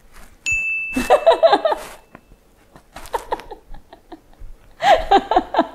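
A woman laughing in short bursts, with a steady high tone sounding for about two seconds near the start.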